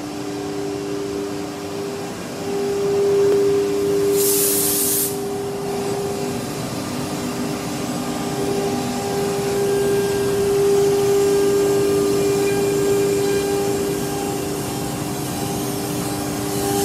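CNC wood router spindle running at about 24,000 rpm with a steady whine, over the rushing hiss of the dust-extraction suction. A short burst of hissing air about four seconds in.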